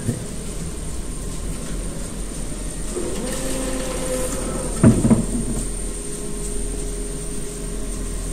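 Cardboard core cutter running: a steady machine hum, a higher tone held for about a second midway, then a sharp knock about five seconds in.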